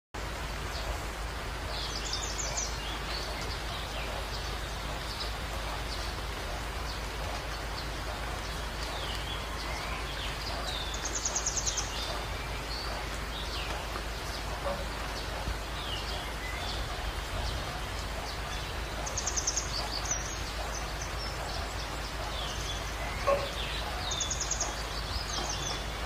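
Steady hiss of rain and a small woodland stream flowing over rocks, with songbirds singing: a short high trilled phrase comes back four times, roughly every eight seconds, among scattered chirps. One brief louder sound near the end.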